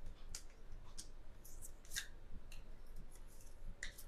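Faint, scattered light clicks and scrapes from a hand-held search and rescue radar transponder (SART) and its telescopic mounting pole as they are handled, switched off and taken down.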